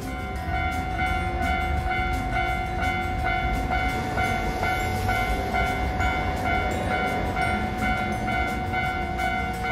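Japanese level-crossing alarm ringing, a repeating electronic ding, which comes on as the crossing closes for an approaching tram.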